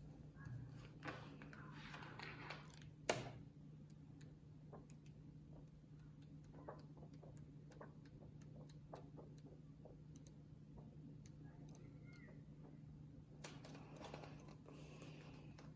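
Glossy magazine pages handled and turned on a wooden table: paper sliding and rustling about a second in, a sharp tap about three seconds in, scattered soft clicks, and another page turn near the end, over a steady low hum.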